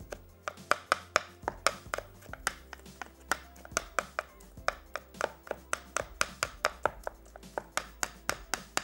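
Kitchen knife chopping soft canned cocktail fruit by hand on a wooden cutting board: a quick, irregular run of knocks of the blade on the board, several a second.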